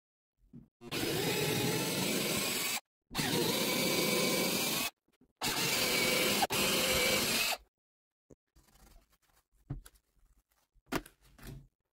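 A power tool run in three bursts of about two seconds each, starting and stopping abruptly, followed by a few faint knocks and clicks.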